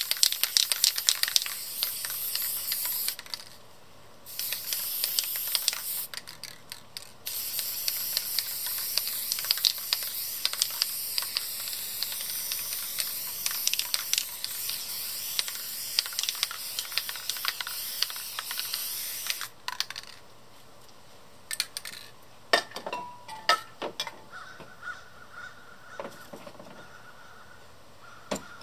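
Aerosol spray paint can (Rust-Oleum American Accents) spraying in long hissing passes, with two short breaks, then stopping about two-thirds of the way through. A few short clicks follow near the end.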